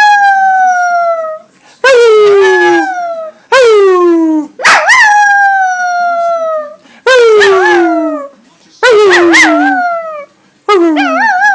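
Puppy howling over and over: about six long howls, each starting high and sliding down in pitch, the later ones wavering up and down.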